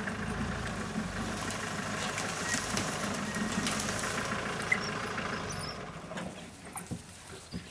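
Vehicle engine idling, with African wild dogs feeding on a carcass close by. The engine noise fades about six seconds in, leaving separate sharp snaps and rustles from the dogs tearing at the kill.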